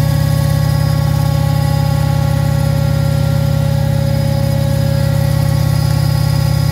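Beko washing machine running steadily: a loud low hum from the motor and drum with a fast, even throb and a whine of steady tones above it.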